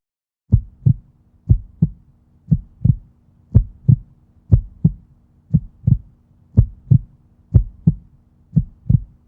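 Heartbeat-like pulse: pairs of low thumps, about one pair a second, over a faint steady hum.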